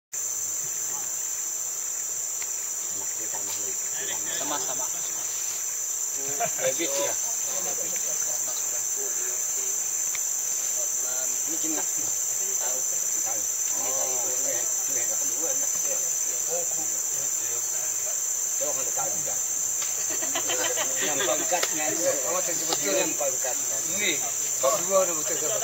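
Steady, high-pitched drone of rainforest insects, with people talking indistinctly now and then.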